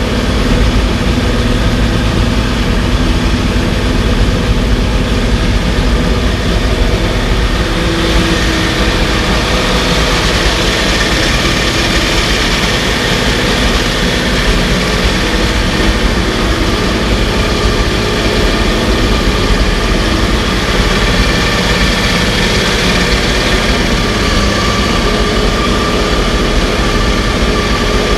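Porsche 917's air-cooled flat-twelve racing engine running steadily at idle, its tone turning a little brighter about eight seconds in.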